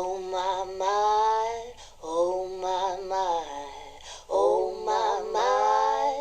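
A song's vocal line of long sung notes in short phrases, played back through a 50-year-old Luxman & Group S-25 loudspeaker.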